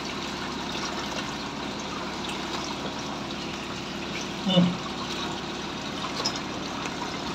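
Water flowing steadily out of a blue PVC drain pipe into a mesh strainer, carrying out the glue scraps and grease that had blocked the line. A faint steady hum runs underneath, with one short low sound about halfway.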